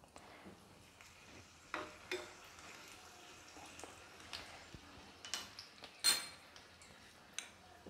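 A steel spoon stirring dried red chillies in hot oil in a small steel kadai, with scattered faint clinks of the spoon against the pan. The loudest clink comes about six seconds in and rings briefly.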